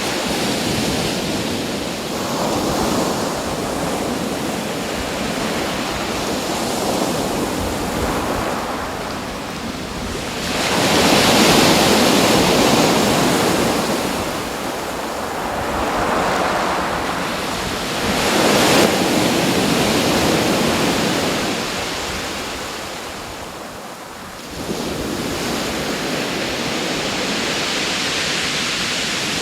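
Ocean surf: waves washing in and out, the rush swelling and easing every few seconds.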